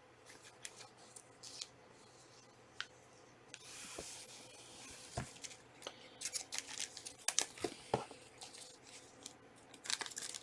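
Trading card packs being handled: scattered clicks of cards, a wrapper tearing about three and a half seconds in, then crinkling and quick clicks as cards are handled.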